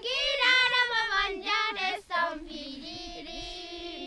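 A high-pitched voice singing a melody with wavering, bending pitch, with a held lower note underneath; the line breaks briefly about two seconds in.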